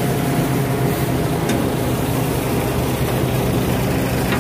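Tractor engine running steadily under load, driving a thresher that is threshing dry fenugreek plants.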